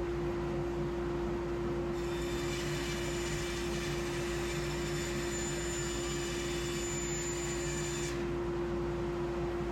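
SawStop table saw running with a dust collector, a steady machine hum throughout. From about two seconds in to about eight, a brighter, hissier sound with a high whine joins as the blade cuts through the wood, then drops away.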